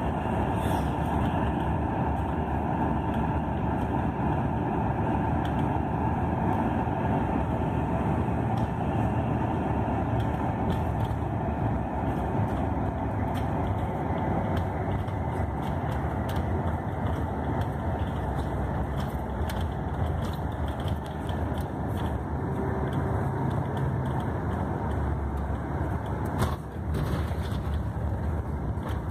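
Steady drone of a long-distance coach's engine and tyres on the highway, heard from inside the passenger cabin while cruising. A brief knock comes near the end.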